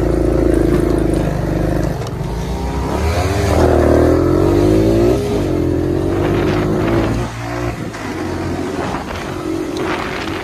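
Four-wheeler (ATV) engine running close by, rising in pitch as it revs up around the middle, then easing off after about seven seconds.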